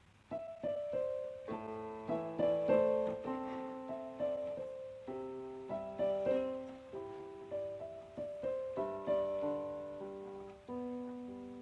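Background music: a solo piano or electric keyboard melody with chords, notes struck in an unhurried rhythm.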